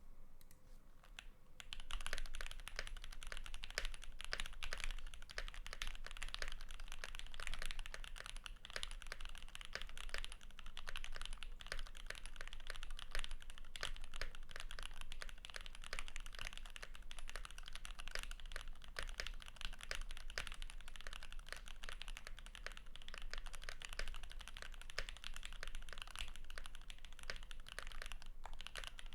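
Continuous fast typing on a custom 65% mechanical keyboard with lubed SP Star Meteor White V2 linear switches, GMK Olivia++ keycaps on an aluminium plate and greased stabilisers; dense key clacks start about a second and a half in.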